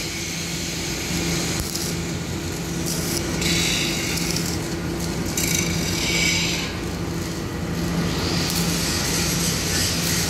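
MIG welding arc on steel crackling and hissing in several short bursts, then a longer run near the end, over a steady low hum.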